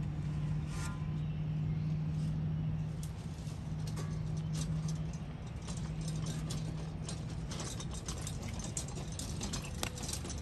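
Small motor of a yard power tool running steadily at a constant pitch. In the second half, scattered clicks and light rattles come from a wheelbarrow being pulled over the ground.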